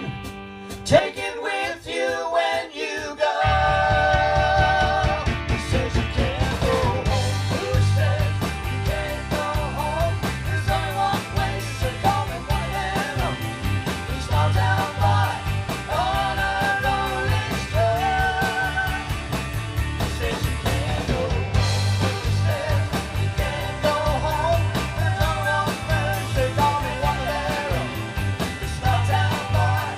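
Live rock band with guitars, bass, drums and keyboard playing a song, with a singer. The first few seconds are sparse, then the bass and drums come in about three and a half seconds in and the full band plays on.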